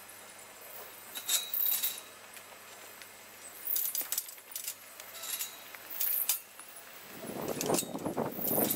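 Galvanized steel sheep hurdle panels clinking and rattling as they are handled and fitted together, in several short bursts of metal clanks; from about seven seconds in, a louder, denser rattle.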